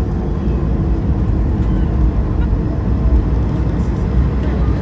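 Cabin noise inside an Airbus A220-300 taxiing after landing: a steady low rumble from the wheels rolling on the taxiway and the Pratt & Whitney PW1500G geared turbofan engines running.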